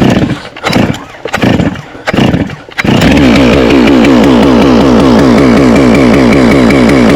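A two-stroke chainsaw being started: about four short bursts as the cord is pulled, then it catches about three seconds in and runs steadily at high speed.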